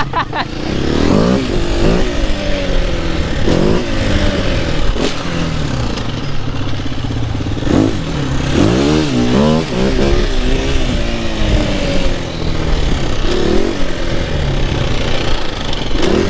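KTM dirt bike's engine revving while it rides, its pitch climbing and dropping back again and again as the throttle is opened and closed.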